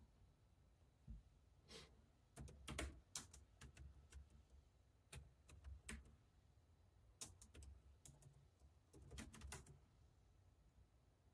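Faint typing on a laptop keyboard: quick clusters of key clicks in four or five short bursts, with pauses between them.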